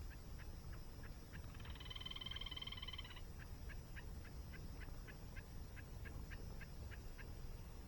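Small animal calling in a steady train of short pitched notes, about four a second, with one buzzy drawn-out call from about one and a half seconds in to about three seconds. Underneath is a steady low rumble of falling water.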